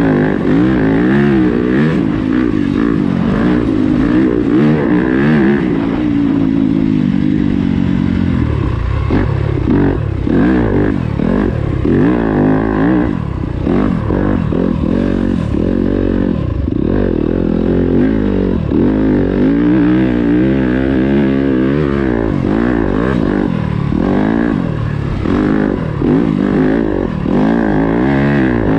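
Yamaha YZ250FX dirt bike's four-stroke single-cylinder engine under way off-road. Revs hold fairly steady for the first several seconds, then rise and fall rapidly, about every second, as the throttle opens and closes.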